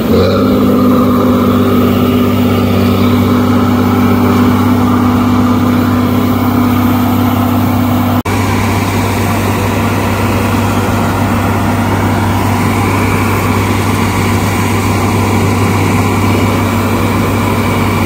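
8070 combine harvester's diesel engine running steadily while it unloads rice grain through its unloading auger. The drone breaks off briefly about eight seconds in and carries straight on.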